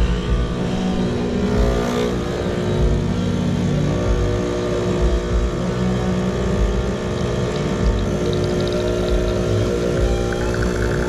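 Espresso machine pump running with a steady hum while a shot is being pulled.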